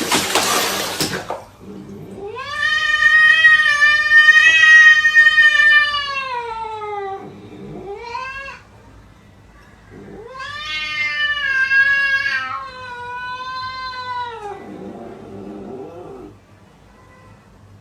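A cat yowling: two long, drawn-out calls whose pitch sags at the end, each followed by a shorter cry. A brief burst of noise comes right at the start.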